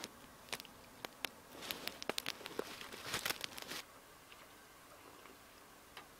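Small campfire crackling with irregular pops, mixed with rustling as a coffee pot is hung on a stick over it. About four seconds in, this gives way to a faint steady hiss.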